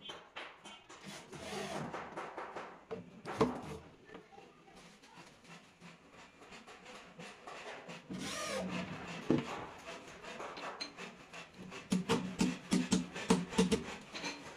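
Cordless drill driving screws through a steel drawer slide into a plywood drawer side, with a short whirring burst about eight seconds in. Scattered knocks and taps of wood and metal being handled, bunching into a quick run of knocks near the end.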